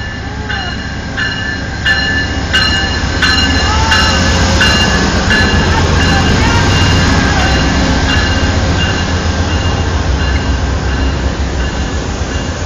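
Amtrak passenger train rolling past close by, its wheels clacking over rail joints about every two-thirds of a second over a low rumble and a steady high whine. It grows louder over the first few seconds, then holds steady as the clacks fade out.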